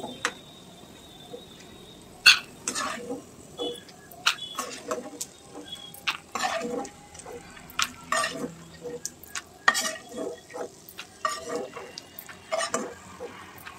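A slotted spoon stirring and scooping peanuts out of hot frying oil in a non-stick kadhai: irregular scrapes, knocks and clinks of the spoon and nuts against the pan, over a light sizzle of the oil.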